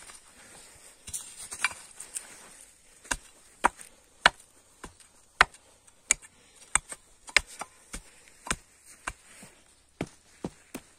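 A steady series of sharp thuds on bare soil, nearly two a second, from about three seconds in, with a few scattered ones before.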